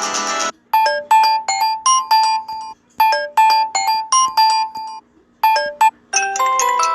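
Samsung Galaxy A3 stock ringtones playing in turn. One ends just after the start, then another plays a repeating phrase of short, bright, bell-like notes with short breaks. About six seconds in, the next ringtone begins with rising notes that ring on.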